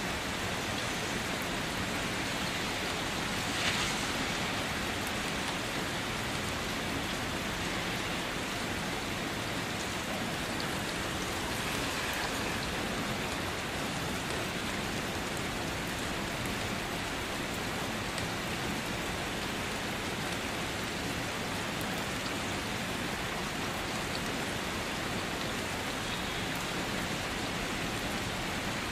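Steady rain falling, with one short, louder tap about four seconds in.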